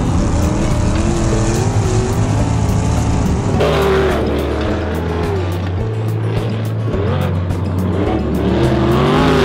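410 sprint car engines, methanol-burning V8s, running at speed around a dirt oval, their pitch rising and falling, under background music with a steady beat. The sound changes abruptly about a third of the way in.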